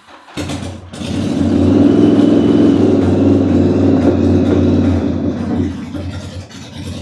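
Old carburetted motorcycle engine starting with the choke on. It sputters briefly, catches about a second in and runs loud and fast, then settles lower and quieter after about five seconds.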